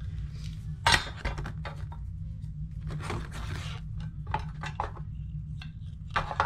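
A metal watch tin being opened and unpacked: a sharp clank about a second in as the lid comes off, then scraping and rustling as the cushion insert holding the watch is drawn out, with scattered light clicks and taps.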